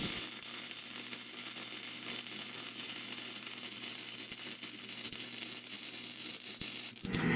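An old Clark MIG welder's arc welding steel square tubing: a steady, even crackling sizzle that cuts off near the end as the bead is finished.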